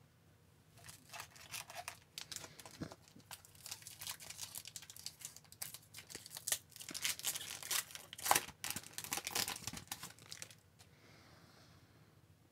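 Plastic wrapper of a hockey card pack being torn open and crinkled: a dense run of crackling from about a second in, dying away near the end.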